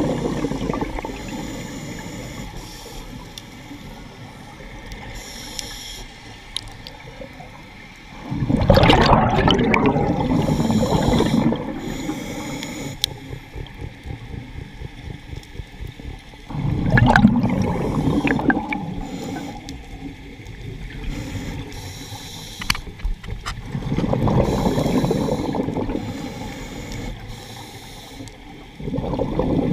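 A scuba diver breathing through a regulator underwater. Loud gurgling bursts of exhaled bubbles come about every seven or eight seconds, with quieter breathing noise in between.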